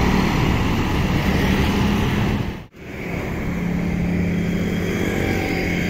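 Street traffic on a busy road: motorcycle and bus engines running past, a steady traffic rumble with an engine hum. The sound drops out for a moment near the middle, then the traffic noise resumes.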